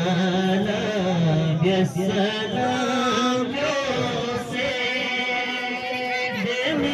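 A man's voice chanting in long, held notes that bend gently in pitch, with only brief breaks for breath.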